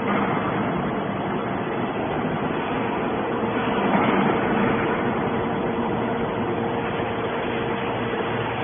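Machinery running steadily: continuous mechanical noise with a constant hum, swelling briefly about four seconds in.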